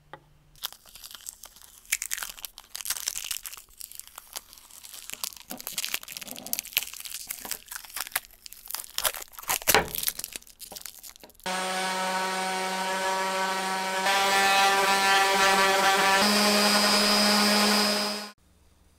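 Irregular scraping and clicking of hand work on parts, then an electric power tool's motor runs steadily for about seven seconds, getting louder partway and rising slightly in pitch before it stops abruptly.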